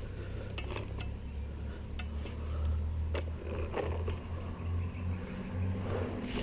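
Scattered knocks and scrapes of boots and hands on a tree trunk and limbs as a climber edges along a log, over a steady low rumble.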